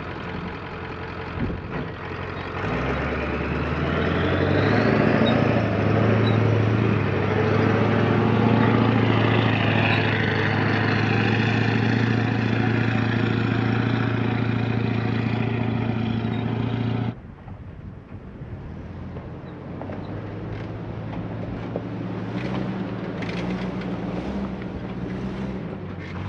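Ford F350's 7.3 Powerstroke turbo-diesel V8 pulling under load as the truck camper crawls up a steep rock ledge; it swells about three seconds in and holds at a steady, heavy note. It cuts off suddenly about two-thirds through, and a quieter vehicle engine follows with wind on the microphone.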